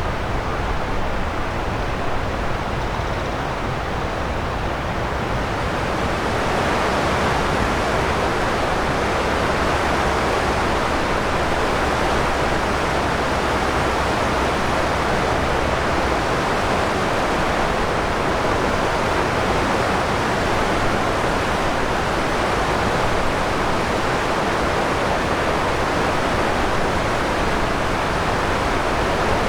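Steady rush of flowing river water, an even hiss-like noise with no breaks. A low steady hum underneath stops about halfway through.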